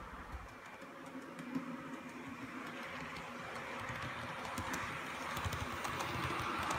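Bachmann OO gauge Class 150 model diesel multiple unit running along model railway track, its motor and wheels growing louder as it approaches, with sharp clicking from the wheels over the track in the last couple of seconds as it passes close by.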